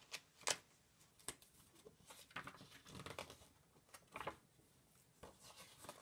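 Faint rustles and soft handling noises of a picture book's paper page being turned, in a few short scattered bursts.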